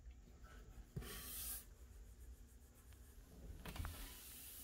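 Faint handling sounds from a melamine drawer box and its metal slide: a light tap about a second in followed by a brief rub, and more soft rubbing a little past the middle.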